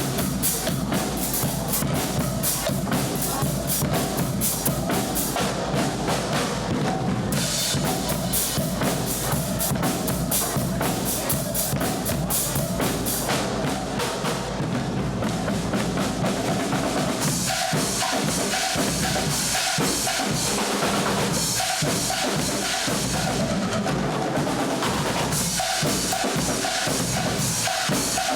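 A Guggenmusik carnival band playing loud, raw brass chords over a driving beat of bass drums and snare drums.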